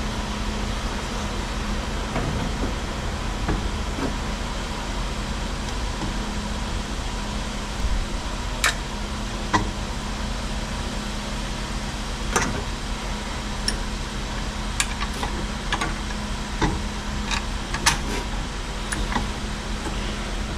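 Steady mechanical hum in the background, with a scattering of short light clicks and knocks in the second half as a car alternator is handled and fitted onto its mounting bracket on the engine.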